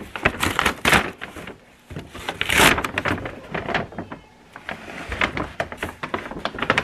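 Paper takeout bag rustling and crinkling as hands pull it open and dig inside, in uneven spells with short lulls about two and four seconds in.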